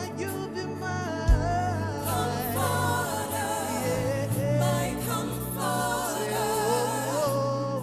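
Live Afro gospel band music with singing over a steady bass line, and one deep bass thump about a second in.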